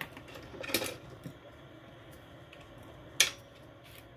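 Hot air rework gun blowing steadily while metal tweezers click and tap a few times against small components on a circuit board, with the sharpest click just after three seconds.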